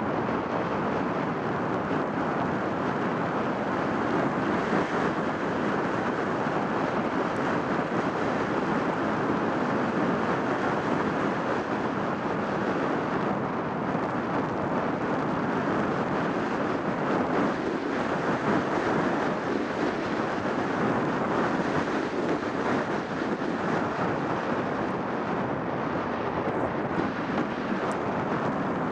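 Wind rushing over an action camera's microphone during a downhill ski run, a steady loud roar mixed with the hiss of skis sliding on packed snow.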